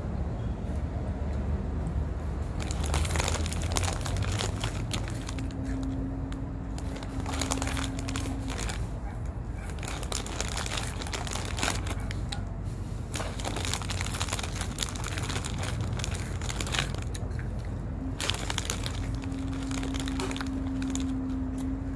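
A foil snack bag of hot Cheetos crinkling and rustling in irregular spells as a hand digs in and pulls chips out.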